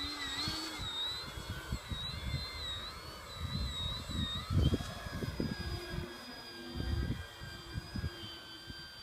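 Hitec Week-Ender 300S radio-controlled aerobatic model plane's motor and propeller whining, wavering up and down in pitch as the throttle works to hold it in a low nose-up hover. About four and a half seconds in it settles into a steadier, higher whine as the plane climbs away. Wind buffets the microphone in irregular low gusts.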